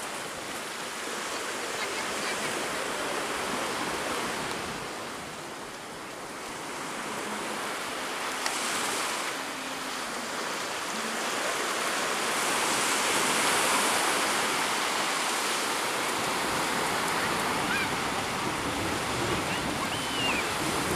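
Sea waves washing onto the beach: a steady rushing surf that swells and ebbs, loudest a little past halfway.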